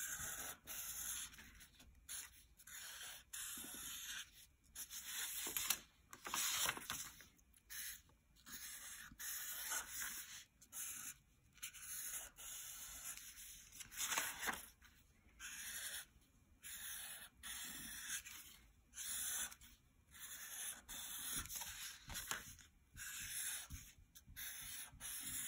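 Sharpie Fine Point permanent marker drawn across paper in short strokes, a soft scratchy hiss with each line, one or two a second.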